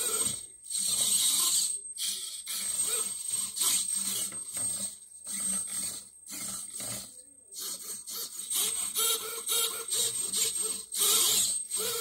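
Hobby servo motors in a 3D-printed robotic hand whirring in short, irregular bursts as they drive the fingers open and closed, with a thin steady high whine underneath.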